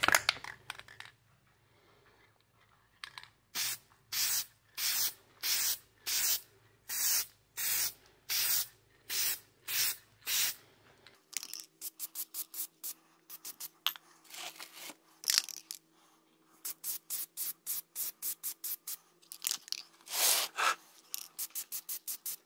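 Aerosol can of Plasti Dip rubber coating sprayed onto foam in many short hissing bursts. The bursts come shorter and faster from about halfway in, where the footage runs at three times speed.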